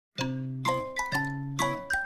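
Background music: a light melody of struck, bell-like notes, about three a second.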